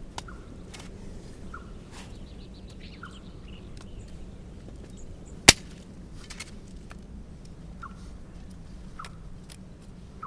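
Campfire crackling: scattered sharp pops at irregular intervals, one much louder about five and a half seconds in, over a low steady hiss.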